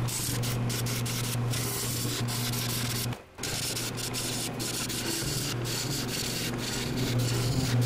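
A lathe turning an epoxy-resin blank with golf balls cast in it, while a gouge cuts the spinning resin: a steady motor hum under a continuous scraping hiss from the cut. The sound drops out briefly a little past three seconds in.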